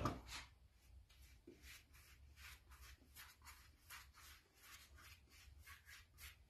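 Faint, quick strokes of a small paintbrush working watered-down wood filler over a 3D-printed helmet, a soft brushing scratch several times a second.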